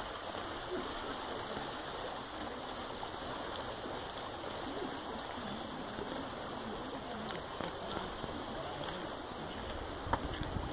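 Steady rushing of running water from a small mountain stream, with faint distant voices and a single click near the end.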